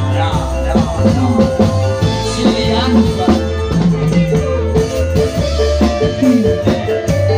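Live dangdut koplo band playing loudly through a PA: kendang hand drums with sliding, pitch-bending strokes over a steady electric bass line and keyboard.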